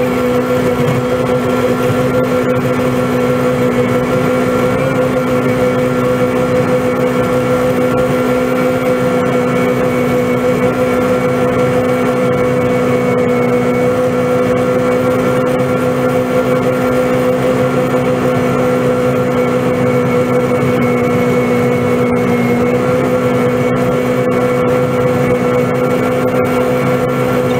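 Engine held at a steady high speed driving a snowblower that is throwing snow, heard from inside the cab. The pitch stays level, with one brief slight dip late on.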